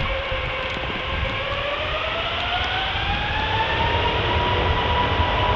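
Airbus A380's four turbofan engines spooling up for takeoff thrust: a whine that rises steadily in pitch over a low rumble.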